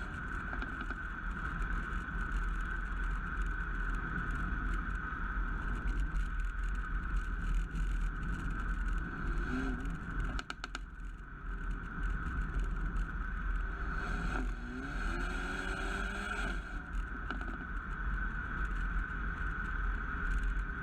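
Mercedes-AMG A35's turbocharged four-cylinder engine and exhaust under way, over a constant heavy road and wind rumble. The engine note changes twice, about nine and fourteen seconds in, and about ten seconds in a short run of sharp exhaust cracks comes as the throttle lifts.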